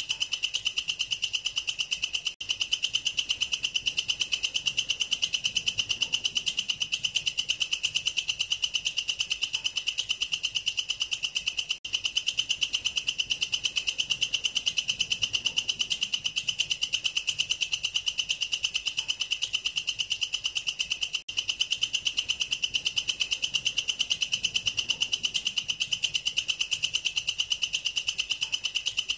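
A katydid (bush cricket, 'belalang kerek') stridulating: a continuous, rapid train of sharp, high-pitched ticks, broken by a brief pause three times.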